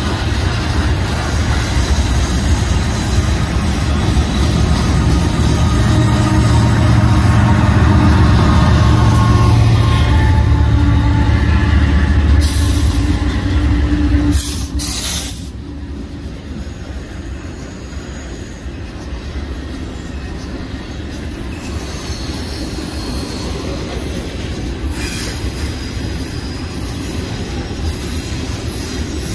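A freight train passing, with a mid-train BNSF GE diesel locomotive's low engine rumble building and then falling away sharply about halfway through. Steel wheels roll and squeal on the rail under the loaded flatcars and the double-stack container cars.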